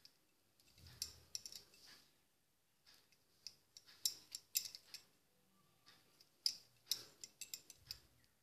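Faint, irregular clicks and small rattles of a needle picking plastic beads out of a steel bowl, in several short clusters of clicks.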